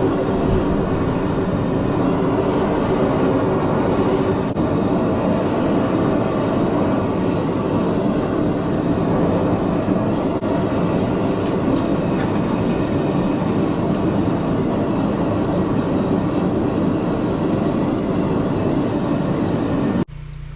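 A forge running with a loud, steady rushing noise while the rebar blade heats for its water quench. It cuts off abruptly near the end.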